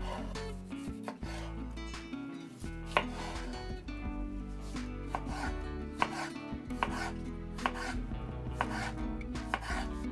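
Chef's knife cutting a red bell pepper on a bamboo cutting board: irregular taps of the blade on the board, the loudest about three seconds in.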